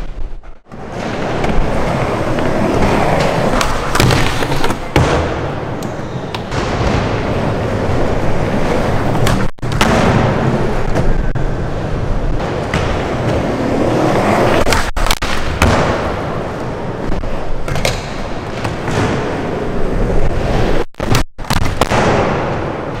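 Skateboard wheels rolling over wooden skatepark ramps, with sharp clacks from the board during tricks. The sound drops out abruptly several times where clips are cut together.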